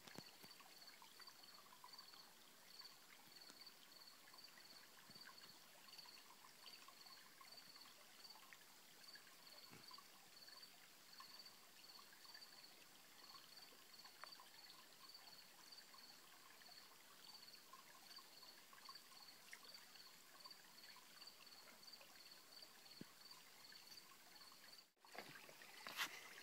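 Faint trickle of a small shallow stream, with a high chirp repeating about twice a second all the way through. Near the end the sound cuts out for a moment and a sharp knock follows.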